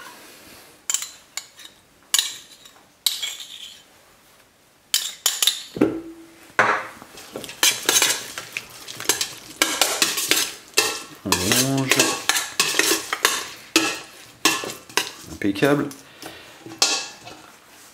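A metal utensil clinking and scraping against a stainless steel mixing bowl as raw shrimp are stirred through mustard. A few scattered clinks come first, then a rapid, busy run of clinks and scrapes from about five seconds in.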